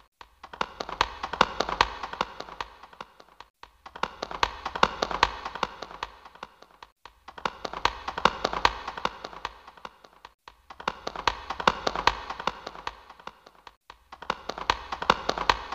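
Rapid, irregular tapping or clicking in stretches of about three and a half seconds, each swelling and fading, repeated over and over as a loop with a short silent break between each.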